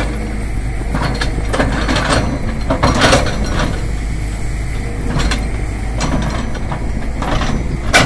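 Tata Hitachi crawler excavator's diesel engine running steadily while the steel bucket digs and scrapes through loose soil, with a handful of short crunches, the loudest about three seconds in.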